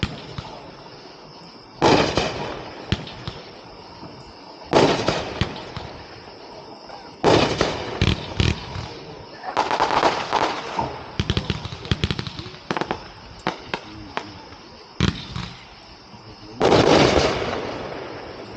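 A 30-shot consumer firework cake (Simply Azure) firing. Loud shots and bursts come every two to three seconds, with a cluster of rapid sharp pops in the middle.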